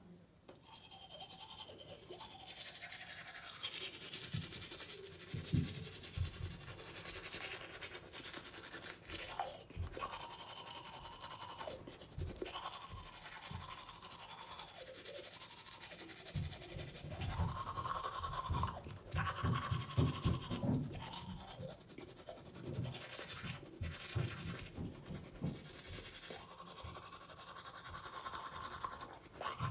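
Teeth being brushed with a toothbrush: irregular back-and-forth scrubbing strokes throughout, busiest and loudest a little past the middle.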